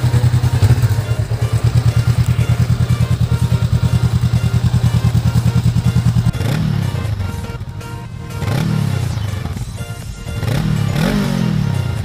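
Honda Rebel 500's 471cc liquid-cooled parallel-twin engine idling steadily with an even, rapid exhaust pulse. About six seconds in it is revved three times, the pitch rising and falling with each blip.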